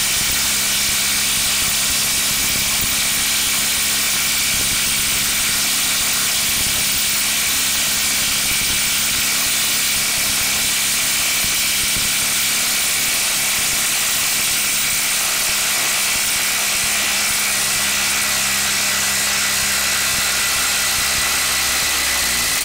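Bosch brushless impact driver hammering steadily as it backs a 6-inch lag screw out of wood, running nonstop with little progress and cutting off suddenly at the end. The driver is at its limit: the socket is heating up and the tool gives off a burning smell.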